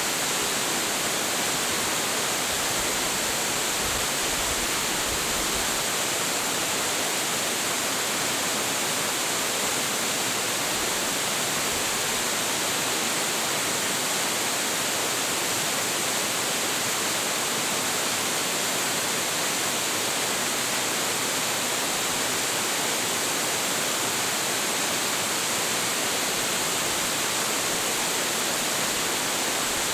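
A tall waterfall with a heavy flow pouring steadily: a constant, even rush of falling water, strongest in its high hiss and unchanging throughout.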